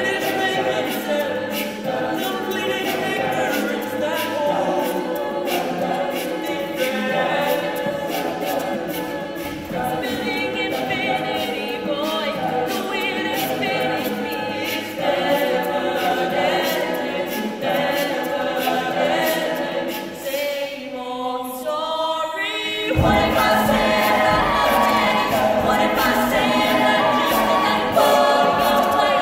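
Mixed-voice a cappella group singing live, with a steady clicking beat under the voices. About twenty seconds in, the sound thins to a rising line, then the full group comes back in louder with a deeper bass.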